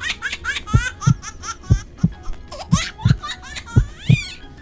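Edited-in sound effects: high-pitched laughter in quick rising squeals that thins out over the first three seconds, over a heartbeat effect of paired low thumps about once a second.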